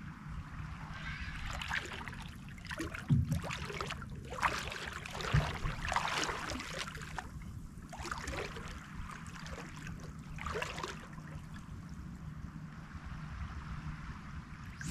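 Shallow water sloshing and splashing in uneven swishes as a person wades through knee-deep water, over a steady low hum. There is a short low thump about three seconds in.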